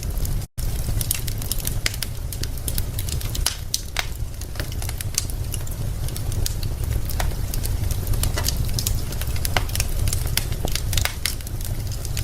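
Wood fire burning in a fireplace, logs crackling with frequent sharp, irregular pops over a steady low rumble of the flames. A split-second cut to silence about half a second in.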